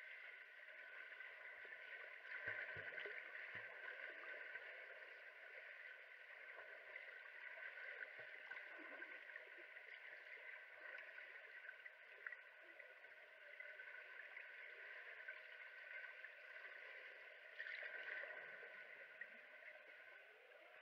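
Faint, muffled underwater pool noise, as picked up by a submerged camera: a steady watery hiss and gurgle, with a few soft low thumps about three seconds in.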